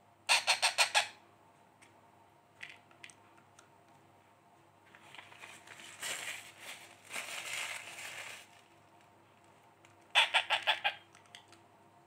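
Baby Indian ringneck parrot chick's begging calls during hand-feeding: two rapid bursts of about six short, sharp calls each, one just after the start and one about ten seconds in. In between come a few seconds of softer, scratchy noise.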